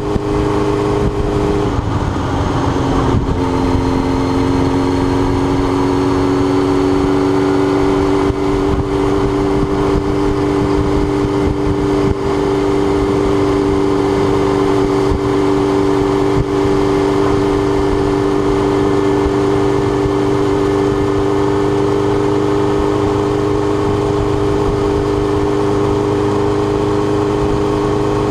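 Suzuki GSX-R1000 inline-four engine, heard from the rider's position, running at a steady part-throttle cruise. Its note dips briefly about two seconds in, then holds steady, over a constant rush of wind and road noise.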